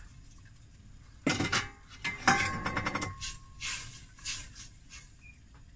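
Stainless steel pot and lid clanking. One strike about two seconds in rings for nearly a second. It is followed by a few softer scraping strokes of a wooden spatula stirring inside the pot.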